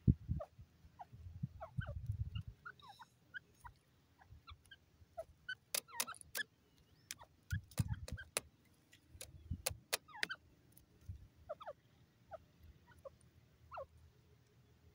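Grey francolin giving short, soft calls, many falling in pitch, scattered throughout. A run of sharp clicks comes between about six and ten seconds in, with low bumps in the first two seconds and again around eight seconds.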